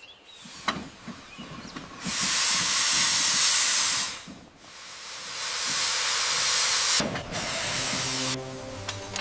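Steam hissing from a steam locomotive in two loud blasts of about two seconds each, the second building up gradually before it cuts off.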